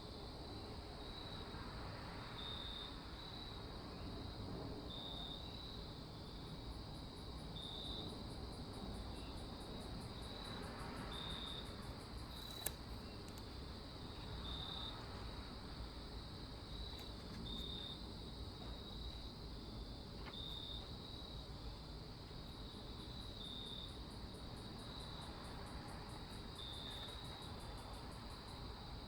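Quiet crickets and other insects chirping: a steady high trill with a short high chirp repeating about every three seconds and stretches of rapid, very high pulsing, over a low steady background hiss. A single sharp click about halfway through.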